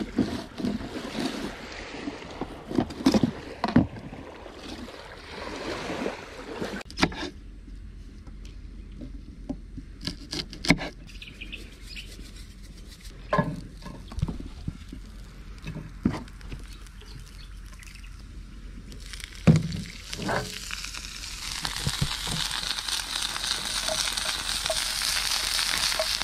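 Wind on the microphone and handling noise while a fish is filleted on a cutting board. After an abrupt change about seven seconds in come scattered knocks and clicks of vegetables being cut and handled on a wooden chopping board. Near the end, a steady sizzle of vegetables frying in oil in a pan on a gas camp stove.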